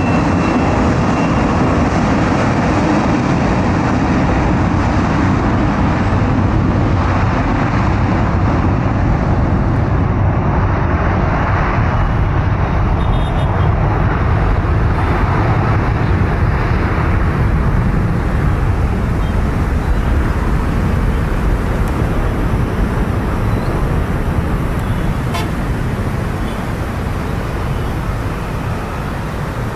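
Airbus A330's jet engines at takeoff thrust during the takeoff roll on a wet runway: a loud, steady rush of engine and spray noise that eases slightly near the end.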